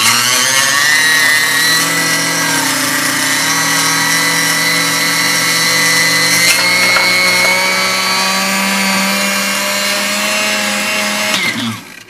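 Black & Decker FusionBlade blender motor running at speed on a jar of frozen berries and frozen yogurt: a loud, steady whine that rises a little in pitch in the first two seconds and cuts off near the end. The blender is not blending properly, which the owner puts down to melted plastic on the motor's drive nut.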